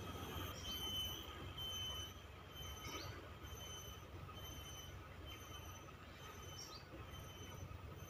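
Insects keeping up several steady high-pitched whines, with a few short rising chirps every two to four seconds, over a low rumble.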